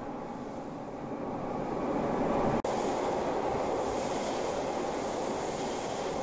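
Subway train pulling in alongside the platform, a steady rumble of wheels and motors that grows over the first two seconds. The sound cuts out for an instant about two and a half seconds in.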